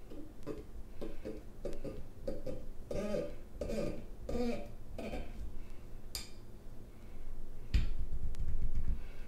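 Corkscrew being twisted into a wine bottle's cork: a run of short squeaks, about two a second, as the worm turns into the cork. A sharp click follows just after six seconds, then a louder low rumbling of handling on the bottle for the last second and a half.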